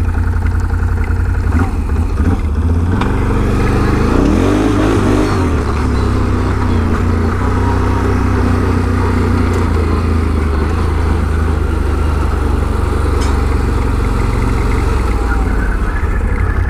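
Can-Am Renegade 1000 ATV's V-twin engine running steadily, with its pitch rising and falling briefly about four to five seconds in.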